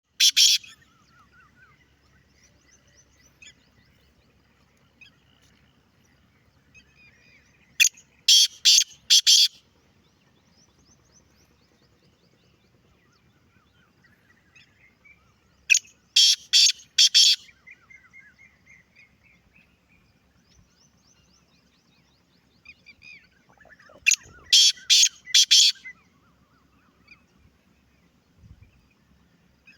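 Black francolin (kala teetar) calling: a loud run of four or five harsh, grating notes, given four times about eight seconds apart. Faint chirps of other small birds fill the gaps.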